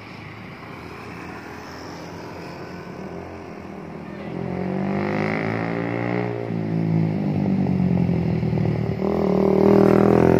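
Large coach's diesel engine coming round a bend and driving past close by. It grows steadily louder from about halfway through, its pitch shifting as it moves, and is loudest as it goes by near the end. Motorcycles pass at the same time.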